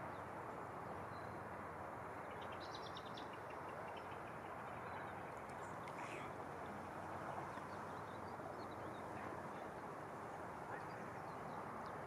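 Steady rush of river water, with faint bird calls above it, including a short run of quick repeated notes about three seconds in.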